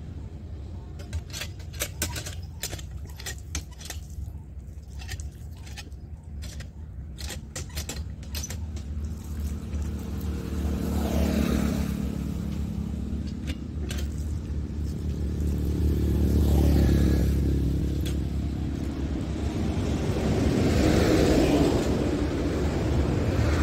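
Road traffic: three vehicles pass one after another, each swelling and fading, over a steady low hum. Before them comes a run of light clicks and rattles.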